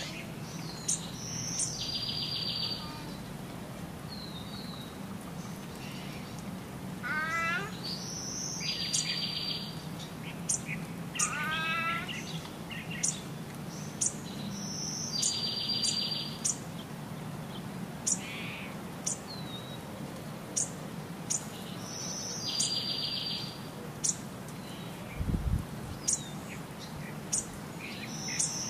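Birds chirping and calling, the same short run of high chirps and a rapid trill repeating about every six and a half seconds like a looped recording, over a steady low hum. There is a single dull thump about 25 seconds in.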